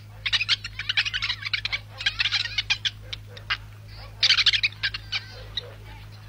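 Cartoon monkey's high-pitched squeaky chattering, in three rapid bursts.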